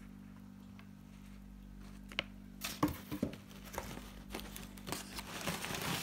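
Crumpled newspaper packing material rustling and crinkling with a few sharp crackles as a hand rummages through it, starting about two and a half seconds in, after a stretch of only a steady low hum.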